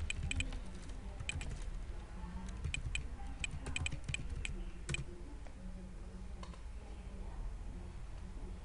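Computer keyboard typing: a run of quick keystrokes over the first five seconds or so, then a single click about six and a half seconds in, over a low steady hum.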